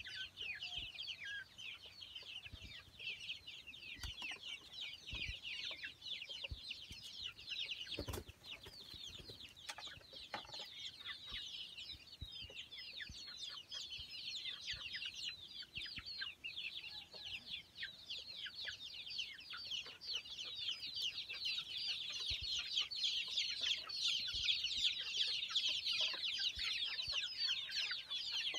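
A flock of young chickens peeping continuously, many short high calls overlapping, growing louder over the last few seconds. A few faint knocks are heard near the start.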